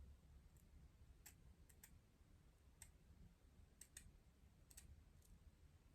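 Near silence: room tone with about eight faint, short clicks scattered irregularly through it.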